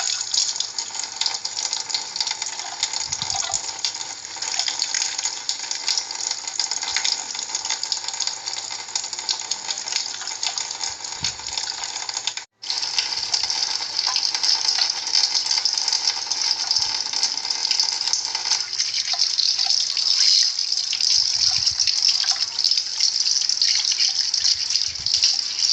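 Water running steadily from a tap into a sink, a loud even hiss that breaks off for an instant about halfway through.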